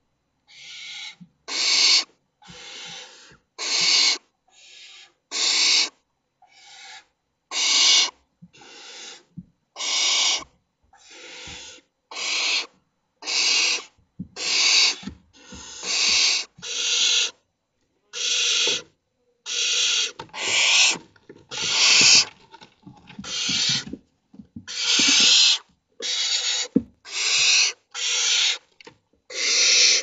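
Barn owl chicks giving their rasping, hissing begging calls, one after another about once a second, some louder and some fainter as several birds call.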